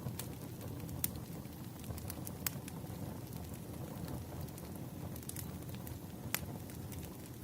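Wood fire burning steadily with a low rumble, and sharp crackles and pops at irregular intervals, the loudest about a second in, midway, and near the end.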